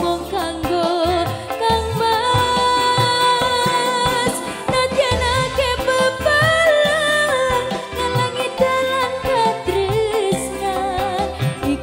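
A woman sings in Javanese sinden style: long held notes with wavering vibrato and bends. Live instrumental accompaniment with regular low drum strokes plays under her voice.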